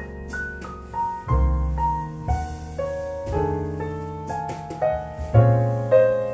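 Piano music played back over a hi-fi system: a melody of struck notes, one about every half second, over deep bass notes, each ringing and fading away.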